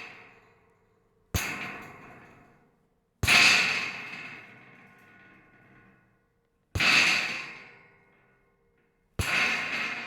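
Scrap metal rattling, four times a few seconds apart: each rattle starts suddenly and dies away over one to three seconds.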